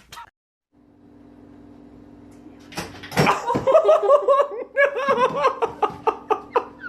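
A person laughing hard in quick repeated bursts, with a few sharp knocks, over a steady background hum.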